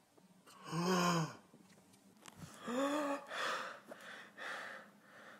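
A man's voice gasping: two short voiced gasps that rise and fall in pitch, about two seconds apart, followed by breathy exhalations.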